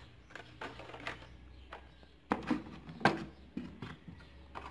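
Blister-packed Hot Wheels cars being picked up and handled in a cardboard case: plastic blisters and card backs clacking and rustling in short, irregular clicks, with two sharper clacks about two and three seconds in.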